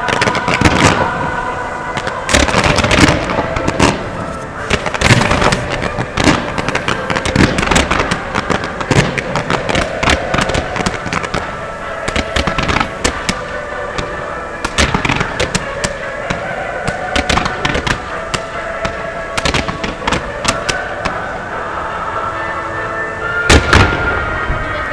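Fireworks display: a dense string of bangs and crackles from bursting aerial shells, with a pair of louder bangs near the end. Music plays underneath.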